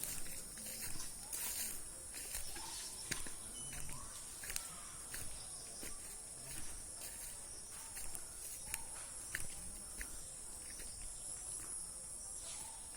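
Scattered short, sharp taps and clicks at an irregular pace over a steady high-pitched hiss.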